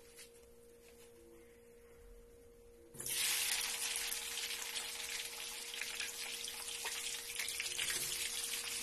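Sweet potato sticks dropped into hot cooking oil in a wok. A loud frying sizzle starts suddenly about three seconds in and carries on steadily.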